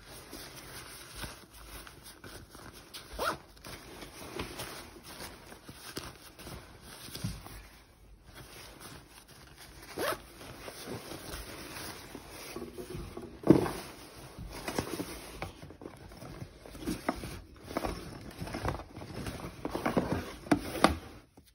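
Rustling and swishing of a Canada Goose Alliston down jacket's nylon shell and its fabric garment bag as they are handled and unfolded. The rustling goes on throughout, with sharper swishes every few seconds; the loudest comes about halfway through, and there is a quick cluster of them near the end.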